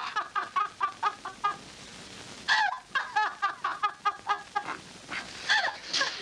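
A woman laughing heartily in quick, rhythmic runs of ha-ha syllables: two long bouts with a short pause between them, then a few shorter outbursts near the end.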